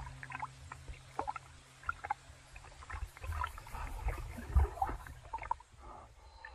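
Sea water sloshing and splashing around a camera held at the surface, with scattered small splashes over a low rumble.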